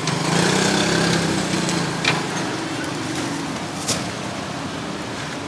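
A small vehicle engine passes close by on the street, loudest in the first couple of seconds and then fading, over steady street noise. There are two sharp clicks, about two and four seconds in.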